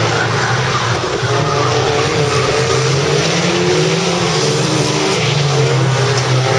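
Several banger racing cars' engines running hard as they race around the track, their pitch rising and falling over a loud, rough wash of noise.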